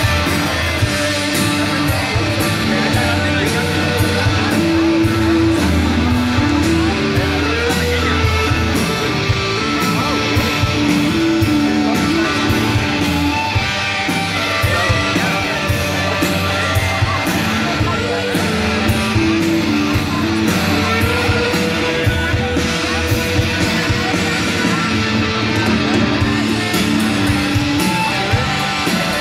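Live rock band playing electric guitars over a steady drum beat, heard through a large PA system from the audience.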